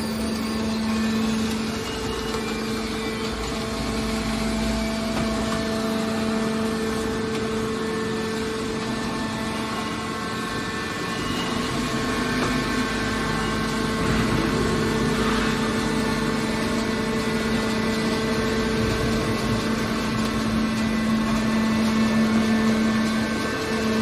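Hydraulic scrap metal baler's power unit running, a steady hum with a constant pitch.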